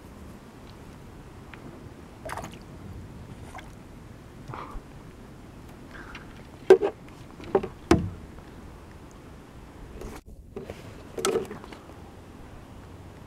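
Scattered knocks and bumps on a kayak hull as a tenkara rod and gear are handled, the loudest a few sharp knocks around the middle.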